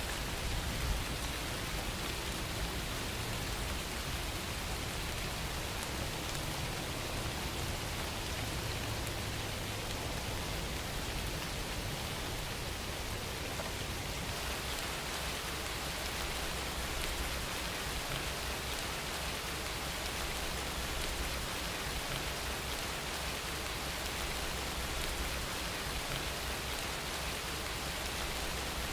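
Steady rain falling and pattering on surfaces, an even hiss with no break, and one small drip-like tick about a second in.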